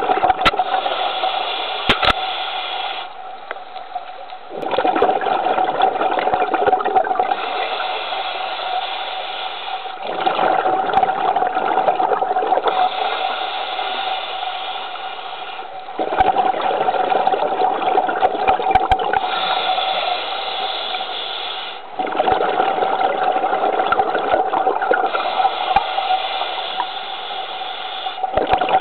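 Scuba diver's regulator breathing underwater: a bubbling, gushing exhale alternating with a hissing inhale, one breath cycle about every six seconds.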